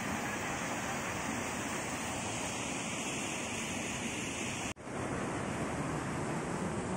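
Steady rush of a stream pouring through a narrow rocky chute, mixed with wind on the microphone. The sound drops out for an instant a little under five seconds in, then resumes.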